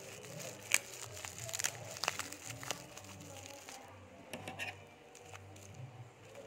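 Black plastic wrapping crinkling and crackling as it is handled and pulled at to get it open. The sharp crackles come thick for about three seconds, then thin out to a few after about four seconds.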